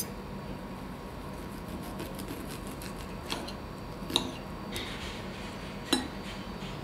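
Knife and fork cutting a pork steak on a white ceramic plate: a quick run of faint scrapes as the knife saws through the meat, and a few sharp clicks of metal on the plate, the loudest about four and six seconds in. A steady low hum lies underneath.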